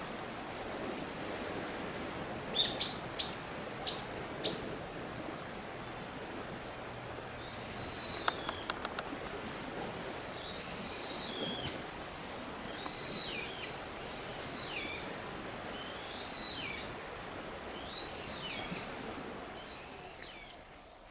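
Wild songbirds calling: a quick run of five sharp, loud calls about three seconds in, then a bird repeating a short arched call about every second and a half.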